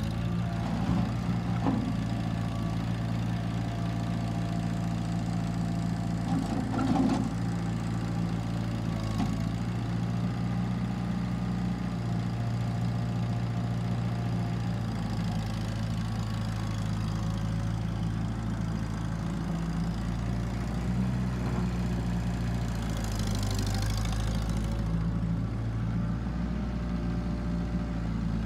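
Kubota L3940 compact tractor's four-cylinder diesel engine running steadily as the tractor drives slowly. A few clunks in the first several seconds and a brief hiss a few seconds before the end.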